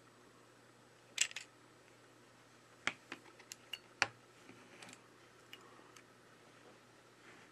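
Small handling clicks and crackles of an iPhone 11's glued screen being pulled free of the body and swung open: a short crackle about a second in, then a few sharp clicks and light ticks.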